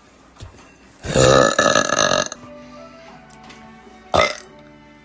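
A woman's long, loud burp starting about a second in and lasting over a second, followed near the end by a short, sharp sound, with background music playing underneath.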